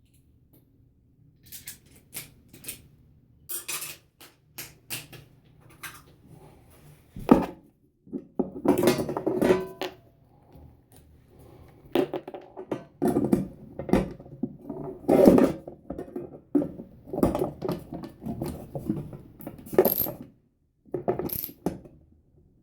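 Irregular metallic clicks, clinks and knocks from work on a bathroom exhaust fan's motor and its small mounting bolts as they are fitted and tightened. The knocks grow busier and louder after about seven seconds.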